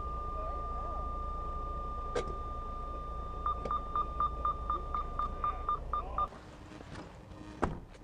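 Semi truck's diesel engine idling under a steady electronic warning tone from the cab. About three and a half seconds in, the tone turns into fast beeping, about five beeps a second. Engine and beeping cut off together about six seconds in, and a sharp click follows near the end.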